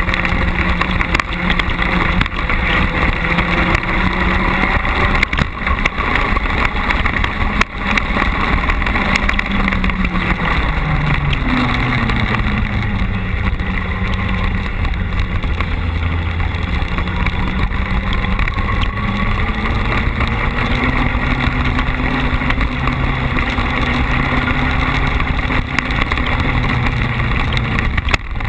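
Carcross buggy's engine running hard at racing speed on a dirt track, heard from onboard over tyre and gravel noise. The engine note drops sharply about eleven seconds in, then climbs steadily again as the car accelerates.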